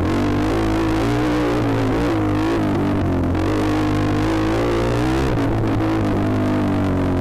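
Dirt bike engine running hard under the rider on a trail, its revs rising and falling with the throttle and a shift in the low drone about five seconds in.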